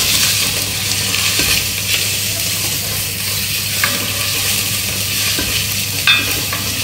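A tadka of garlic, cumin, mustard seeds and asafoetida sizzling and frying in hot fat in an enamelled pot while being stirred with a spatula. The spatula knocks sharply against the pot about four seconds in and again, loudest, about six seconds in.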